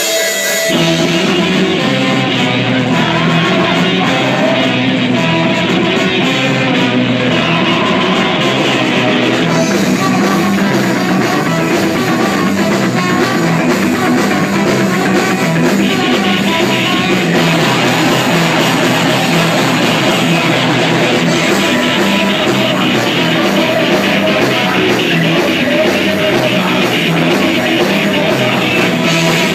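Live rock band playing loud: electric guitars and drum kit, with a singer singing into a microphone over them.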